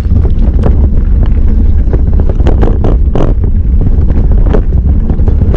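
Wind buffeting the microphone of a camera on a moving mountain bike, a heavy steady rumble, with irregular knocks and rattles as the bike runs over rough trail.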